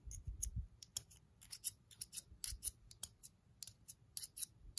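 Small spring-loaded thread snips snipping shavings off the end of a makeup stick: rapid, irregular crisp snips, several a second.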